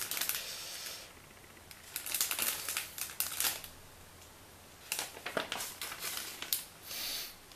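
A paper instruction booklet rustling and crinkling as its pages are flipped over by hand, in several separate bursts with quiet gaps between.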